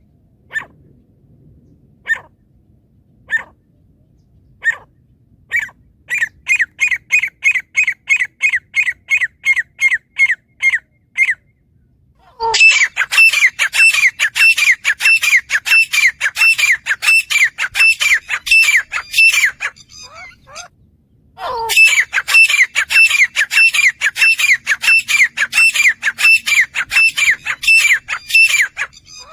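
Grey francolin calling. A few single notes come a second or so apart, then break into a fast run of repeated calls, about three or four a second. After a brief pause, two louder runs follow.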